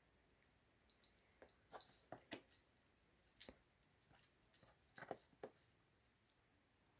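Faint scattered clicks and short scrapes, about a dozen, between about one and five and a half seconds in, over near silence.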